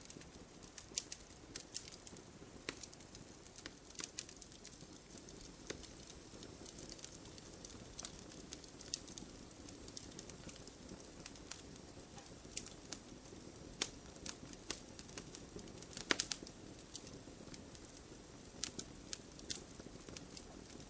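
Irregular light clicks and crackles, a few at a time with a brief louder cluster about 16 seconds in, over a faint low background noise.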